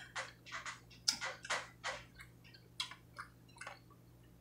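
Close-up chewing of leafy salad: a string of short, crisp crunches and wet mouth clicks at an uneven pace.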